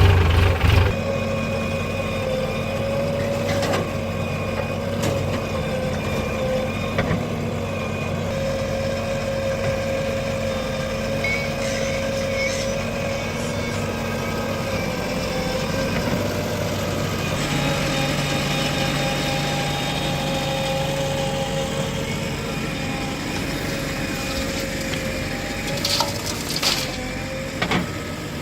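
Backhoe loader's diesel engine running steadily. Its note shifts slightly about two-thirds of the way through, and a few short knocks come near the end.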